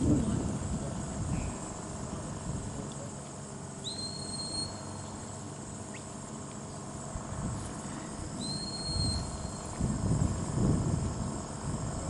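Two short high whistle commands from a border collie handler to his dog, about four seconds apart, each rising quickly to a held note. A low rumble swells up near the end.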